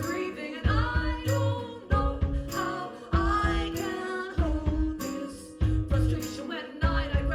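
Live band playing a song with singing over it, a strong drum beat landing about every second and a quarter.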